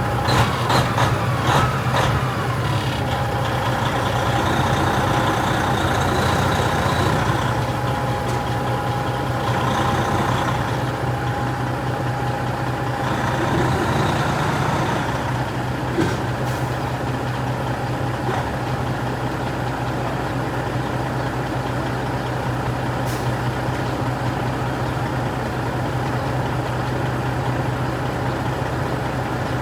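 Heavy truck's diesel engine running steadily, with a few sharp clicks in the first couple of seconds and another about halfway through.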